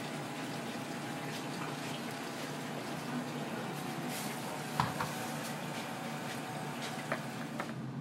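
Steady kitchen background noise with a low hum, broken by a few short sharp clicks and clinks about five seconds in and again near the end.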